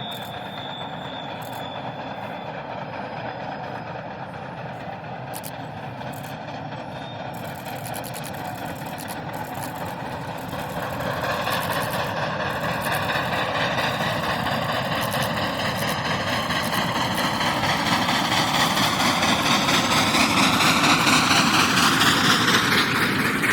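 Train running, a steady rumble and rattle joined about halfway by a whine that climbs in pitch and grows louder, then drops away near the end.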